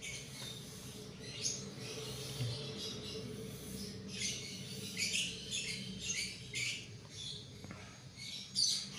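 Paintbrush bristles scrubbing dust off a Toshiba Satellite L840 laptop's CPU fan and motherboard: irregular short, scratchy swishes, roughly one or two a second.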